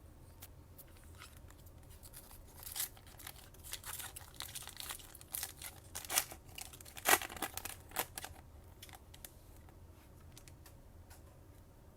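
Foil wrapper of a trading-card pack being torn open and crinkled. There is a run of crackles and rips that builds from a couple of seconds in, is loudest near the middle, and dies away a few seconds before the end.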